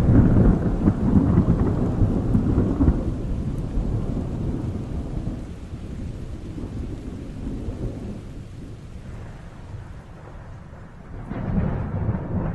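Thunder rumbling in a lightning storm, loudest at the start and dying away over several seconds, with rain falling throughout. A second rumble swells up about eleven seconds in.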